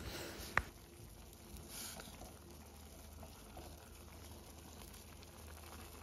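Faint bubbling of instant noodles simmering in a steel pot, with one sharp clink of the ladle against the pot a little after the start.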